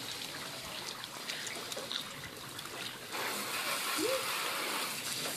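Water spraying from a garden hose nozzle onto a soapy car, a steady hissing splash that gets louder about three seconds in.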